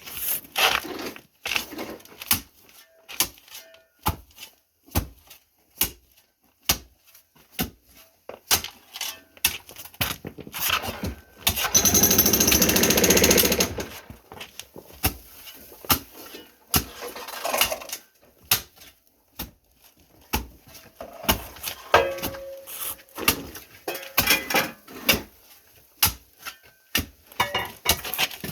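Jackhammer breaking up a concrete floor in short runs, the longest and loudest about twelve seconds in, between scattered knocks and clatter of tools and broken concrete.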